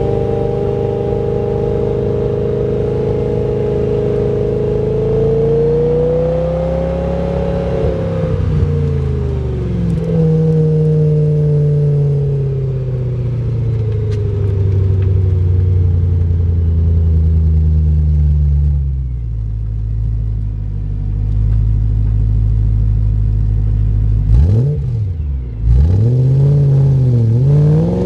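2008 BMW E92 M3's 4.0-litre V8 heard at the tailpipes of its Megan Racing aftermarket exhaust while driving. The note rises under throttle, then falls away as the car slows and holds lower. Near the end the pitch swings sharply down and up a few times, then climbs again.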